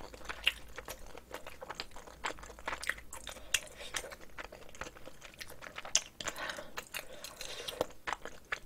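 Close-miked chewing of a mouthful of rice mixed with spicy marinated cockles, heard as many short irregular mouth clicks and smacks.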